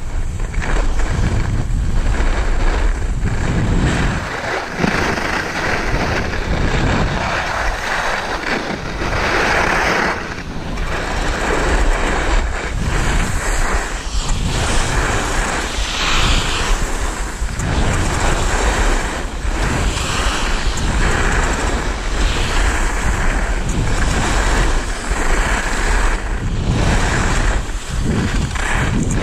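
Skis scraping and hissing on packed snow with wind noise on the microphone, swelling and easing turn by turn as the skier descends.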